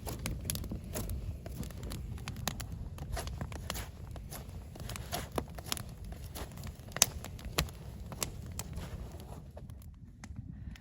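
Campfire crackling: wood burning with irregular sharp pops and snaps over a low steady rush of the flames.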